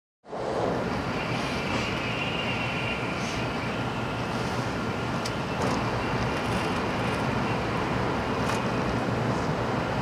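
Steady running noise heard inside a Shinkansen passenger car at speed: an even rumble with a faint high whine and a few light ticks. It comes in just after a brief silence at the start.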